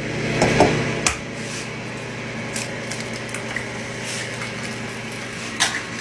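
Egg frying in a nonstick pan: a steady sizzle with a low hum under it and a few light clicks.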